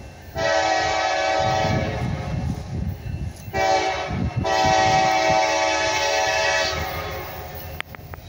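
Diesel freight locomotive's air horn sounding long, short, long over the low rumble of the train rolling past. A first long blast ends just before, so this fits the close of the standard long-long-short-long grade-crossing signal. The rumble and a few sharp clacks carry on after the horn stops near the end.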